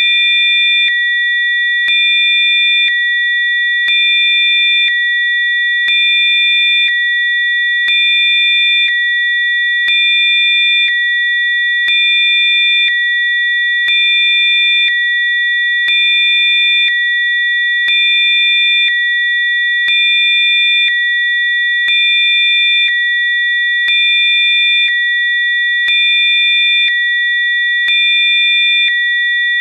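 Synthesized sine-wave tones for a 'healing frequency' track: several steady high-pitched electronic tones held together. The loudness steps slightly about once a second, with a faint click at each change.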